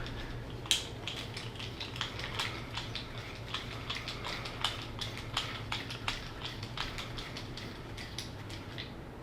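Light, irregular clicks and ticks of small screws, hex driver and plastic transmission parts being handled and fitted together by hand, one to a few clicks a second, with one sharper click about a second in.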